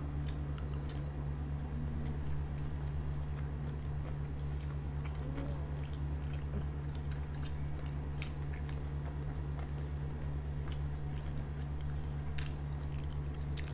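Two people chewing mouthfuls of burger, with small wet mouth clicks, over a steady low hum.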